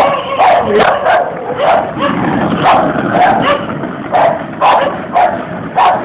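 A dog barking over and over, about two loud barks a second.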